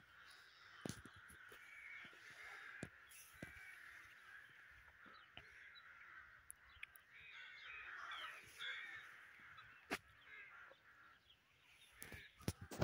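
Crows cawing faintly over a quiet outdoor background, with a few sharp clicks, the loudest about ten seconds in.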